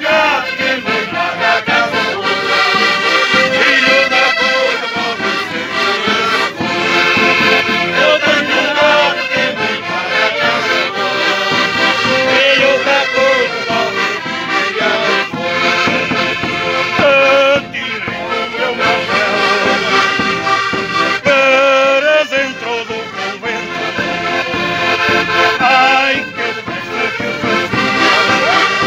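Several button accordions playing a traditional northern Portuguese folk tune together, with a large bass drum beaten along with them.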